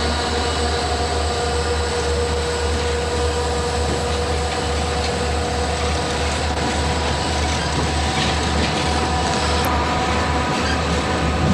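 Southern Pacific diesel locomotives rolling past in dynamic braking, with a steady whine from the dynamic brake blowers over the rumble of the train. About halfway through, one of the whining tones fades as the units go by and the freight cars follow.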